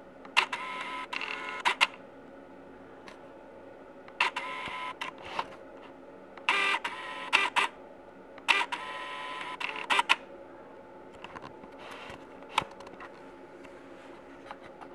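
Camera lens autofocus motor whirring in four bursts of about a second each, with ticks as it starts and stops, hunting for focus on a point of light in the dark; a few lone ticks follow near the end.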